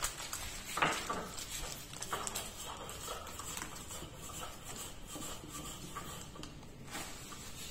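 Scattered light clicks, knocks and rustles as turmeric powder is shaken out of a plastic packet over a large aluminium pot, with a sharper knock about a second in.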